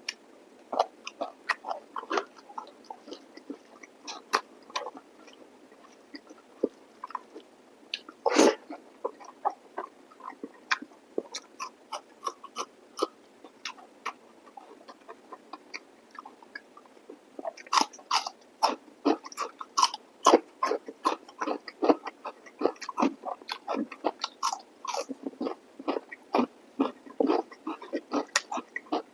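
Close-miked chewing and eating of chicken curry with rice: wet lip smacks and mouth clicks in quick irregular runs, sparser early on and coming thick and fast in the last third, with one louder smack about eight seconds in.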